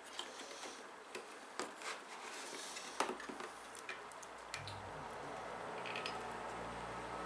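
Small clicks and light knocks of computer hardware being handled and fitted, the sharpest about three seconds in; about halfway through a steady low hum starts and carries on.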